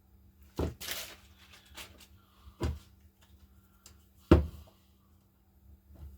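A few sharp knocks and a short scrape as small hard parts are handled and set down. The loudest knock comes about two-thirds of the way through.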